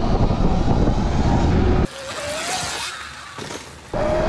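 Wind buffeting the microphone while riding a Sur Ron electric dirt bike fitted with a Torp TC500 controller, with a thin electric motor whine under it. About two seconds in the sound drops abruptly, and a short rising whine is heard as the bike speeds up. The loud wind noise comes back near the end.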